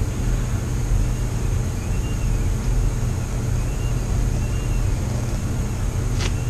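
Steady low background rumble with a faint high-pitched whine running over it, and a single sharp click about six seconds in.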